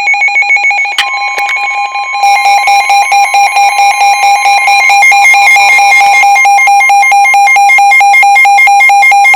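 NOAA Weather Radio emergency alert for a severe thunderstorm warning: a loud electronic alarm of fast, evenly pulsing tones. A steady warning tone joins about a second in, and the alarm gets louder about two seconds in.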